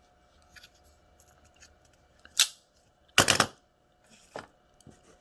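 Folding pocket knife being handled: a sharp click about two and a half seconds in, then a quick clatter of several clicks a second later and a lighter tick near the end, with quiet between.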